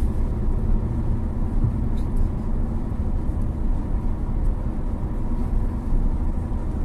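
Steady road and engine noise of a car driving along a highway, heard from inside the cabin: a low, even rumble.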